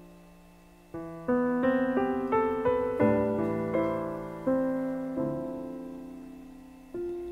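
Background piano music: a gentle melody of single notes and chords, each struck and left to fade, with a quicker run of notes in the middle.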